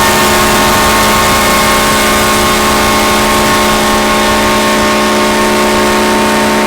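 Electric winch motor running continuously with a steady, unchanging whine.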